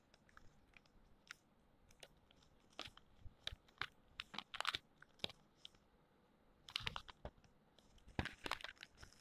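Faint, irregular crackling clicks in short clusters, busiest from about three to five seconds in and again near the end.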